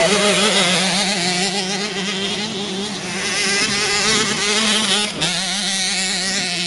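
Motocross motorcycle engines racing on a dirt track, their pitch rising and falling as the throttles open and close, over a steady engine drone.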